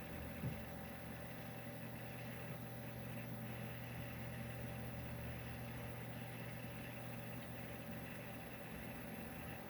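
Western Digital Black hard drives running in a desktop PC: a steady low hum with a faint raspy, grinding texture, the noise these drives make while reading files. One short click about half a second in.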